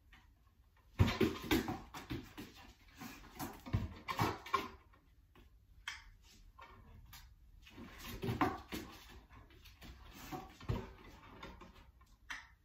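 A wobble board rocking and knocking against the floor as a dog shifts its weight on it, in two spells of irregular knocks and scrapes; the first starts sharply about a second in.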